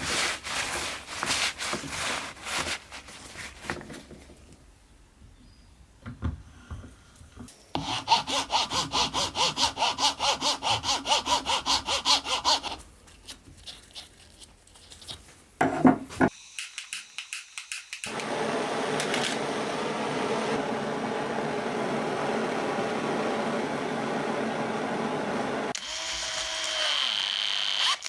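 Hand-tool work on small workshop parts: quick back-and-forth strokes, about four a second for several seconds, like sawing or filing. About two-thirds of the way through, a small power tool runs steadily for about eight seconds.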